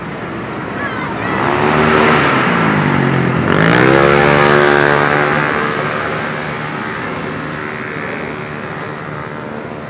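A large bus passing close by with its engine running. The engine swells in loudness, its pitch drops and then climbs again as it accelerates away, loudest about four to five seconds in, then fades.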